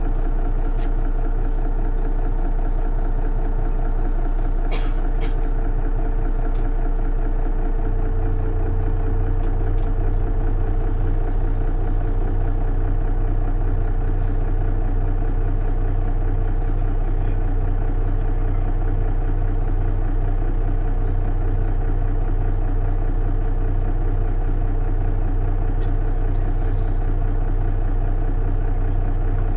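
Mercedes-Benz Citaro city bus engine running steadily, heard from on board, its low hum getting stronger and deeper about eight seconds in. A few faint clicks sound over it.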